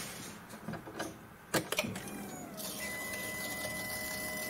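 A few sharp clicks about one and a half seconds in, then a steady electric whine that settles to one constant pitch: the in-tank electric fuel lift pump of a Ford 1.5 TDCi diesel running with the key held in the start position and the clutch not pressed, so the engine does not crank while air is bled out of the fuel system.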